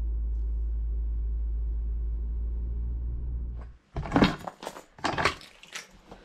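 Steady low rumble of road and engine noise inside a moving car's cabin. It cuts off suddenly, and a few sharp knocks and rustles follow.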